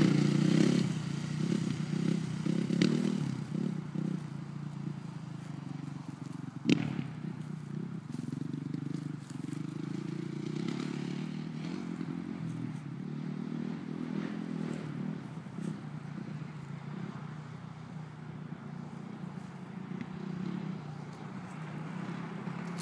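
Suzuki RM-Z450's four-stroke single-cylinder motocross engine revving as the bike pulls away and fades into the distance, its pitch rising and falling with the throttle. A single sharp click sounds about seven seconds in.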